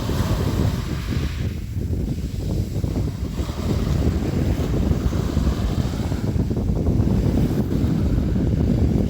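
Sea waves washing and splashing, with a steady low rumble of wind on the microphone. The surf swells near the start and again about four to seven seconds in.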